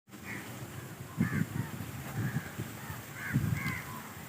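Crows cawing, a handful of short calls spread through, over low rumbles that swell about a second in and again past three seconds.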